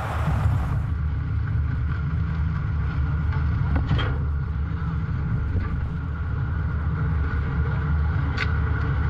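Steady low engine rumble, with a faint click about four seconds in and another near the end.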